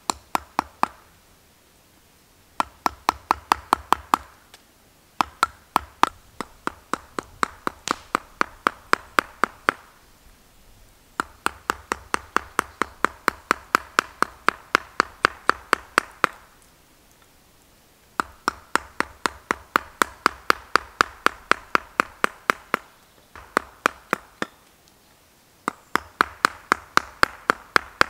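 Wooden mallet striking the handle of a carving gouge, driving it into a log round: quick, sharp wooden knocks at about five a second, in runs of a few seconds broken by short pauses.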